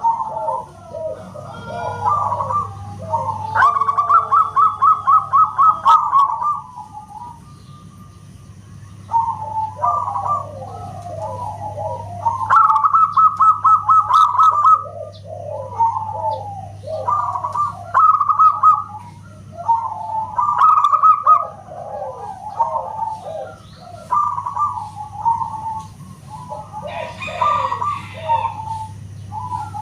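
Perkutut (zebra dove) cooing: repeated phrases of quick staccato coo notes, with a short lull about a third of the way in. A steady low hum sits underneath.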